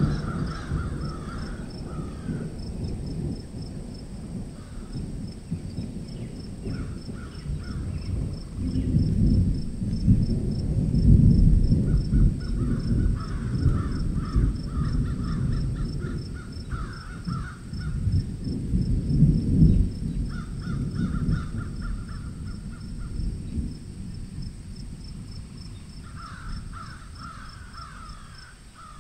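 Crows cawing in repeated bouts, over a fast, steady high insect chirping. A louder low rumbling noise swells and fades underneath, strongest in the middle of the stretch.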